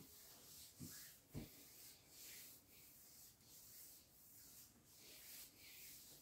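Faint swishing of hands rubbing and sliding over bare skin in repeated massage strokes on a back, with two soft low thumps about a second in.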